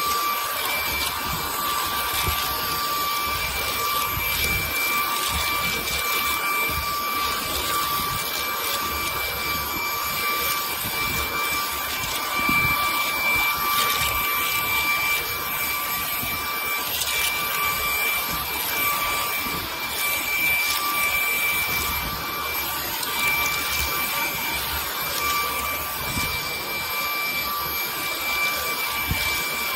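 Hart 20V cordless stick vacuum with a brushless motor running steadily, sucking crumbs out of couch cushions: a constant rush of air with a steady high whine.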